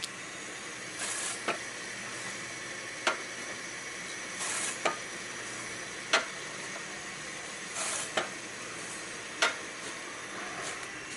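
Hakura Seiki HARD-70 single-slice bread slicer running through its cycle: a steady motor hum under a repeating pattern of a short swish followed by a sharp click, with a second sharp click in between, the pattern recurring about every three seconds.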